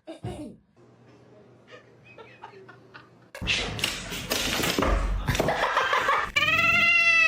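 Laughter from about three and a half seconds in, then near the end a cat's long, loud meow that rises and falls in pitch.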